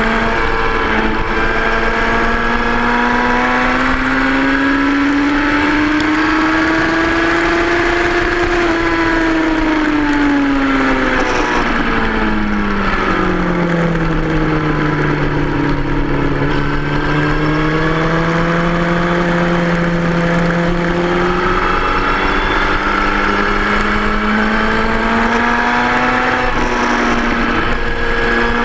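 2003 Yamaha R1's inline-four engine running hard on track, with wind noise. Its pitch climbs slowly, falls over several seconds about ten seconds in, holds low for a while, then climbs again.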